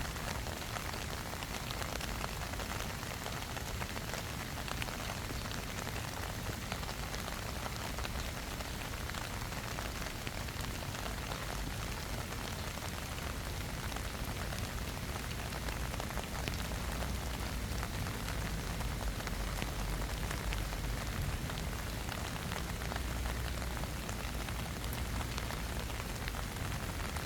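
Steady rain falling on grass, a dense patter of many small drops.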